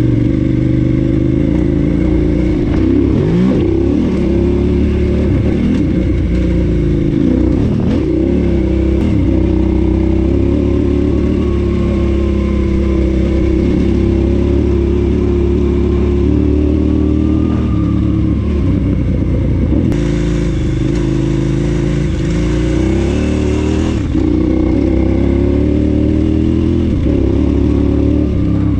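KTM 990 Adventure S motorcycle's V-twin engine running under way on a dirt track. The revs rise and fall repeatedly as the throttle opens and closes.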